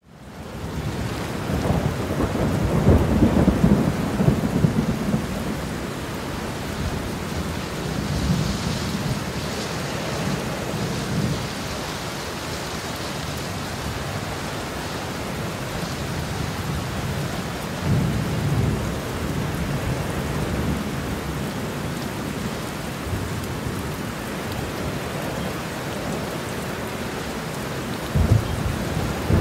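Steady rain with rolling thunder: low rumbles swell strongest a few seconds in, again around eight to eleven seconds and eighteen seconds, with a short one near the end.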